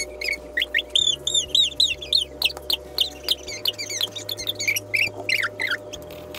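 Background music of sustained low chords that change every two to three seconds, overlaid with rapid, high, bird-like chirping.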